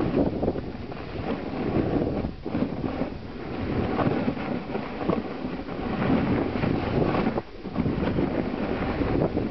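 Wind buffeting the camera microphone while moving down a ski slope: an uneven rush of noise that swells and dips, briefly dropping away a few times.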